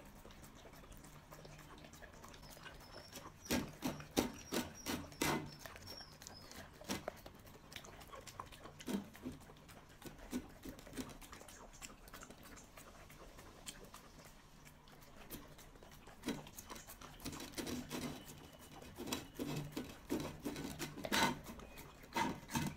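A puppy eating jelly from a dish, with wet smacking, lapping and chewing in bursts broken by quiet pauses. The loudest bursts come about four seconds in and near the end.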